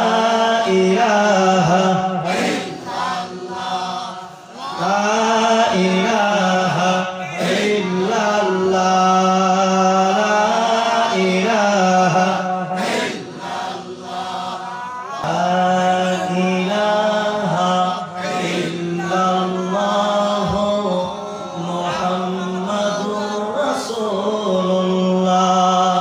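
A man's voice chanting a slow, drawn-out religious melody into a microphone, amplified over a loudspeaker system, in long held phrases with brief pauses for breath.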